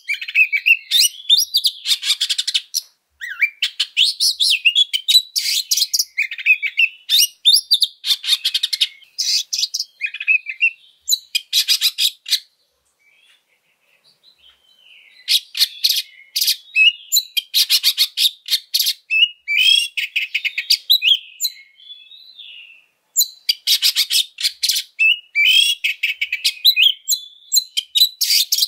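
Oriental magpie-robin singing loudly in harsh, insistent fighting-mode song, full of mimicked phrases. Rapid stuttering trills alternate with whistled sweeps, with a short lull about halfway through and another brief break later.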